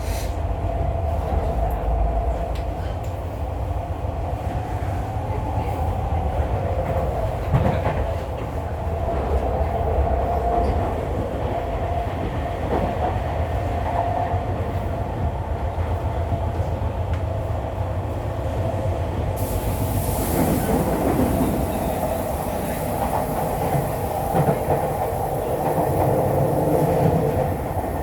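Interior running sound of a Tokyu 5050 series electric train motor car at speed: a continuous rumble of wheels on rail with a steady hum, a few brief knocks, and a high hiss that joins about two-thirds of the way through.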